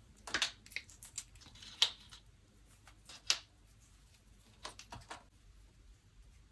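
Small hard dry cat treats being set one by one onto a cake on a paper plate: a scatter of short, sharp clicks and taps. The sharpest come just before two seconds and just after three seconds in, with a few softer ones about five seconds in.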